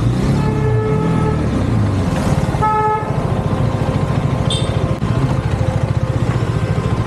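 KTM Duke 390's single-cylinder engine running at low speed, then settling to a steady idle with a fast, even pulse. A vehicle horn honks twice over it: a short honk about half a second in and a shorter one at about three seconds.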